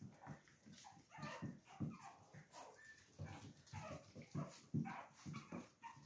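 Small puppies playing, giving quiet short yips and whimpers in quick succession, mixed with brief scuffles and taps of their paws.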